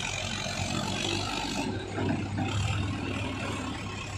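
Mahindra Arjun tractor's diesel engine running steadily with a low hum as it pulls two trailers heavily loaded with sugarcane.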